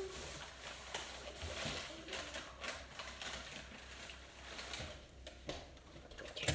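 Faint scattered clicks, knocks and rustling of people moving about and handling things in a room.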